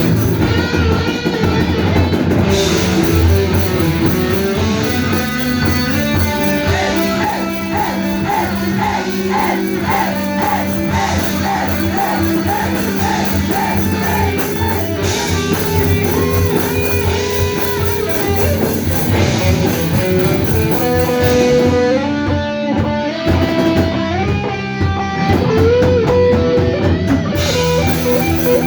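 Live rock band playing: distorted electric guitars holding chords under a melodic guitar line, with a drum kit.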